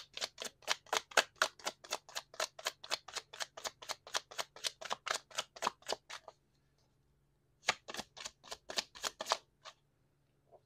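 A tarot deck being shuffled in the hands: a rapid, even run of soft card clicks, about six a second, which stops about six seconds in and starts again for a shorter run after a pause, followed by a few faint taps as a card is laid down.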